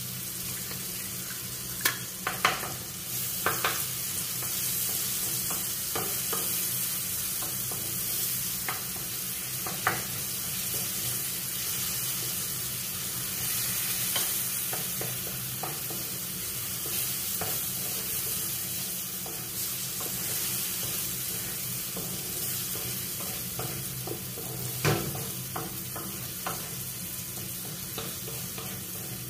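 Eggs sizzling in hot oil in a frying pan, a steady hiss, with a few sharp clicks and taps of a utensil against the pan and bowl, the loudest about 25 seconds in.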